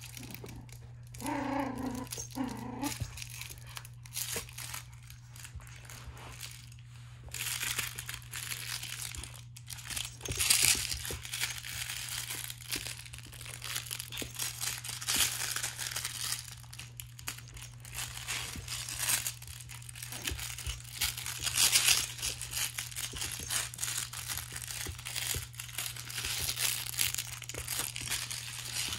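A crinkly plush dog toy rustling and crackling in irregular bursts as it is shaken and pulled in a tug-of-war with a puppy. A brief pitched vocal sound comes about a second and a half in.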